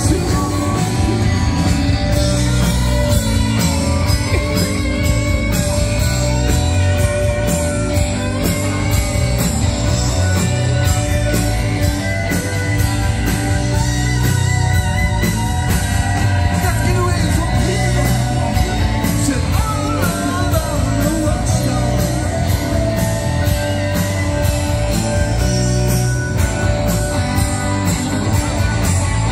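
A live rock band plays through a PA, with electric guitar, bass and drums and a singing voice.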